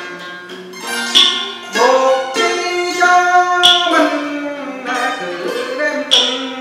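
Vietnamese moon lute (đàn nguyệt) and zither (đàn tranh) plucked together in Huế chamber music, with notes bent and sliding in pitch. A sharp click marks the beat about every two and a half seconds.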